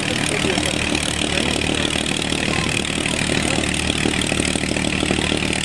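Large multi-bladed helicopter flying past overhead, its rotor and engines making a steady, rapid beating noise.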